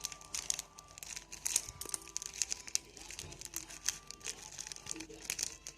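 Plastic snack-pack wrapper crinkling and being torn open by hand: an irregular run of crackles and rustles.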